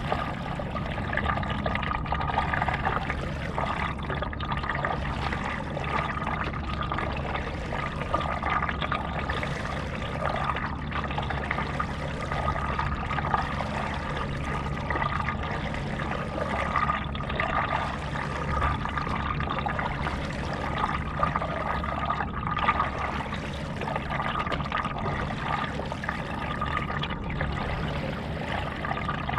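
Water trickling and splashing around a stand-up paddleboard moving across a lake, with a change in the wash every two to three seconds as the paddle strokes go in.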